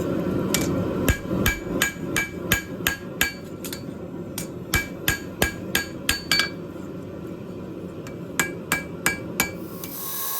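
Hammer blows ringing on steel while forging a knife blade, about three a second, with a pause of about two seconds past the middle before a short final run. A steady low rushing noise runs underneath.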